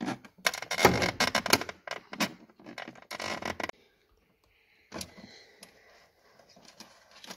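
Hands and a tool scraping and clicking against wires and plastic at a car's under-bonnet fuse box in a quick run of noises that stops about three and a half seconds in, followed by one sharp click.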